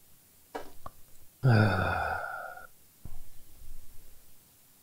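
A man sighs aloud: one voiced sigh lasting about a second and trailing off, after a few faint clicks.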